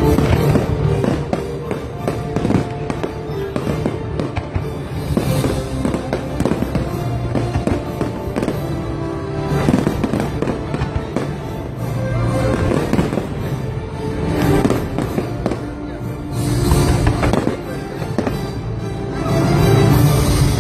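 Fireworks bursting and crackling in quick succession over a loud music soundtrack, with louder volleys about halfway through and near the end.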